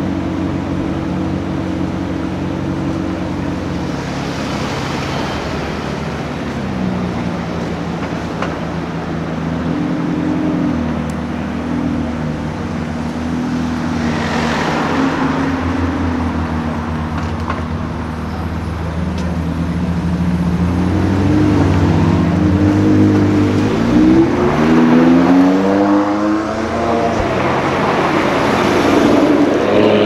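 Sports car engines idling with a steady low drone; a car passes about halfway through. In the last third an engine revs up in repeated rising sweeps as a car pulls away and accelerates.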